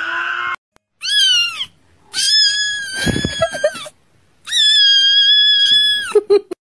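A kitten meowing in three high, drawn-out cries, each rising and falling in pitch. The first is short and the next two last over a second. A few short squeaks follow near the end.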